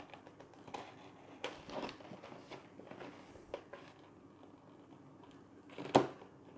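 Small metal knife scraping and slitting a cardboard box open, with light cardboard rustling and scattered small clicks, and one sharp, louder click near the end.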